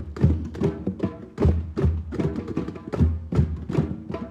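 Group hand drumming in a drum circle: several drums struck together in a steady rhythm of many strikes a second, with deep low strokes among sharper high ones.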